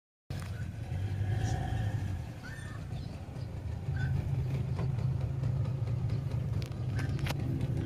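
Small outboard motor running steadily at cruising speed, pushing a small fibreglass boat along, with a few short clicks near the end.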